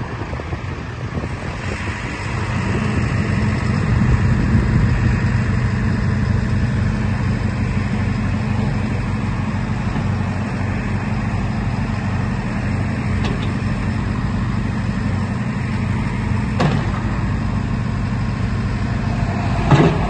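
JCB 3CX backhoe loader's diesel engine running under hydraulic load while the backhoe arm is worked. The engine note rises about two seconds in and then holds steady, with two short knocks near the end.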